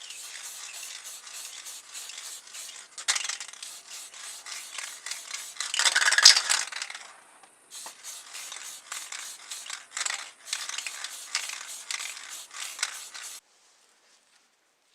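Close-up scraping and scrubbing of hand work on a small model car, in quick uneven strokes, louder for a moment around six seconds in; it cuts off suddenly near the end.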